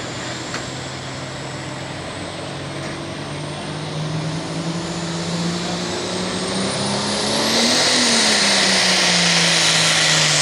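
Turbocharged diesel engine of a John Deere super farm pulling tractor. It revs up at the line, then goes to full throttle about seven and a half seconds in as the pull starts. It gets much louder, with a high whine rising sharply.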